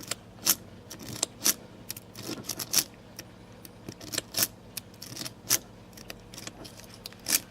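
Metal lock pick raking back and forth over the pins of a heavy-duty Road Pro lock: irregular light metallic clicks and scrapes, a few a second, with a sharper click near the end.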